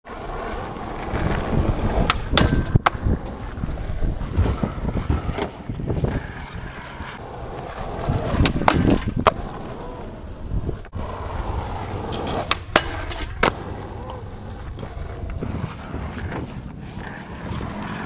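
Skateboard wheels rolling over skatepark pavement with a steady rumble. Several sharp clacks of the board hitting the ground are spread through it.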